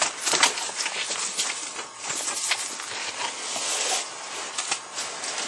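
Irregular rustling and scraping with scattered clicks over a steady hiss, the sound of close handling of gear or the freshly caught burbot.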